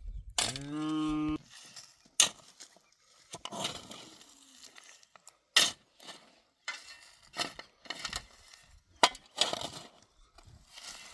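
Scattered sharp clinks and knocks of hard objects being handled. About half a second in there is one steady-pitched call lasting about a second.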